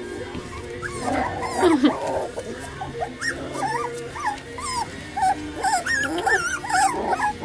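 Labradoodle puppies whining and yipping: many short, high squeaky calls that rise and fall, coming thickest in the second half.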